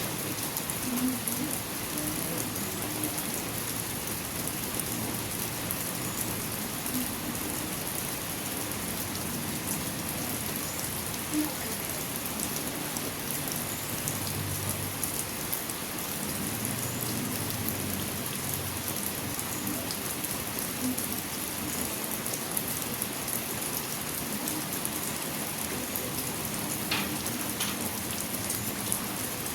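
Steady rain falling, a continuous even hiss of drops on surfaces, with one sharp tick near the end.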